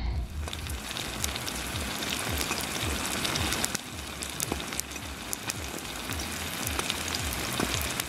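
Eggs and tomato slices frying in oil in a frying pan: a steady, dense sizzle full of fine crackles and spatters.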